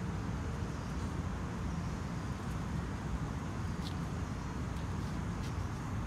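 Steady low rumble of distant road traffic, with a few faint short high chirps in the second half.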